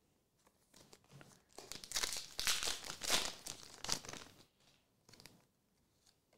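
Foil booster pack wrapper crinkling and tearing as it is ripped open by hand: light rustling first, then about two and a half seconds of dense crinkling, with one short crackle after.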